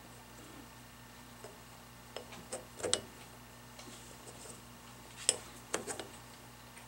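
A few faint, sharp metallic clicks and taps as a steel control arm is worked onto the shaft of a Hydro-Gear hydraulic pump, in two small clusters, one about two seconds in and one a little past the middle.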